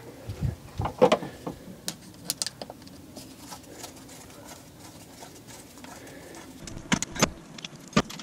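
Scattered light metallic clicks and taps of a screwdriver and fingers working on a Bosch K-Jetronic fuel distributor, with a few sharper knocks near the end.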